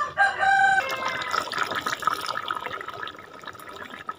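A rooster crowing once, about two seconds long, its pitch falling near the end. Behind it and after it, a pan of curry bubbling on the fire.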